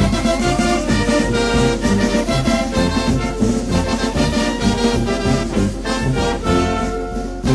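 Mexican banda brass band music playing a son from Michoacán: brass melody over a steady beat.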